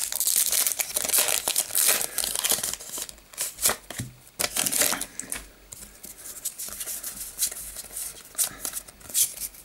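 Foil trading-card booster pack being torn open and crinkled: a dense crackling for the first few seconds, then sparser, quieter rustles and clicks.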